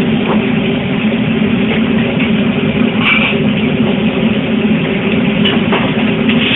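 Steady roar and low hum of a Chinese restaurant's wok range, its gas burner and exhaust hood running, with a brief brighter burst about three seconds in.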